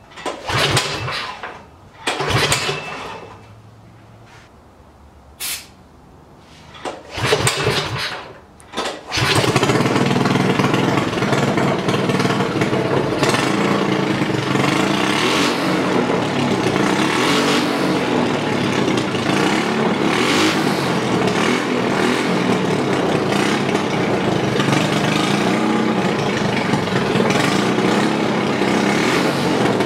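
Predator 212 single-cylinder four-stroke engine with a Mikuni carburetor, running on alcohol, being pull-started: several rope pulls, then it catches about nine seconds in and runs steadily.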